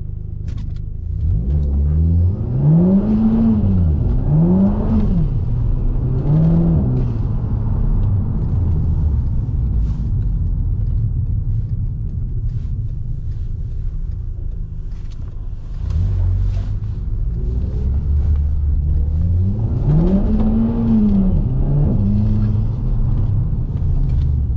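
Stage 2 tuned VW Golf Mk5 GTI's 2.0-litre turbocharged four-cylinder engine driving along with a steady low rumble, the revs rising and falling in three swells about two seconds in and twice more around twenty seconds in.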